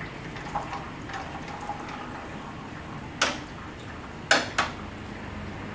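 Engine oil trickling from a Suzuki VanVan RV200 into a metal drain pan, with three sharp metallic clinks about three seconds in, the last two close together.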